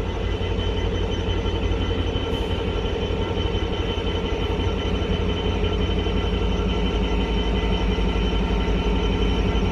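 Class 66 diesel locomotive crawling past along the platform, its two-stroke EMD V12 engine running with a steady low rumble and a steady whine above it. It grows slightly louder toward the end as it nears.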